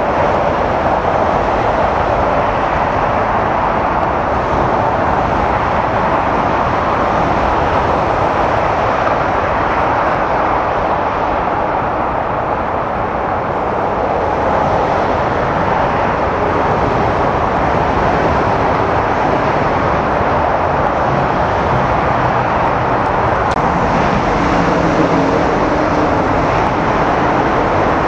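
Loud, steady jet-engine roar of a narrowbody Airbus airliner touching down and rolling out on the runway. Near the end a low droning hum joins in, from an Airbus A330 on final approach.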